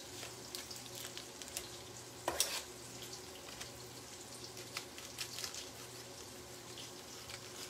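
Mushrooms frying in oil in a pan: a steady, soft sizzle with fine crackles, and one brief louder noise a little over two seconds in.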